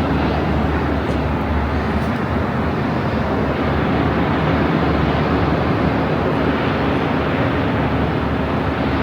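Steady rush of ocean surf and wind, with a low rumble underneath.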